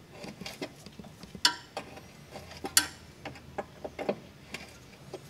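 Light, irregular metallic clicks and clinks of a 13 mm wrench on the brake hard-line fitting as it is cracked loose from the brake hose, with a sharper clink a little under three seconds in.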